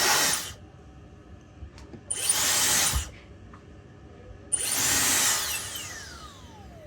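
Dyson dryer's high-speed motor and fan blowing air in three short bursts, each switched off after about a second. The last run winds down with a falling whine as the motor spins to a stop.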